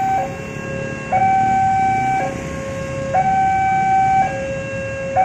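Railroad level-crossing warning alarm sounding a two-tone high-low signal, each tone held about a second in turn: the warning that a train is approaching and the crossing barrier is closing. Motorbike traffic hums underneath.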